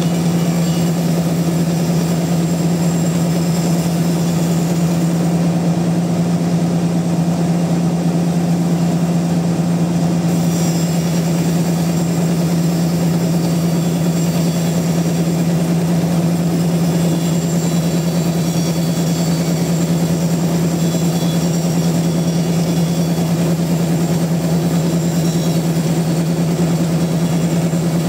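Large log sawmill machinery running steadily, with a strong constant low hum and a rough mechanical noise over it that does not change.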